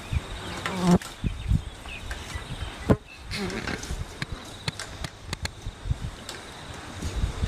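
Cattle hide being pulled by hand off a hanging beef carcass, tearing and crackling in irregular snaps, the loudest about a second in and near three seconds. A short buzz comes twice, about a second in and again past three seconds.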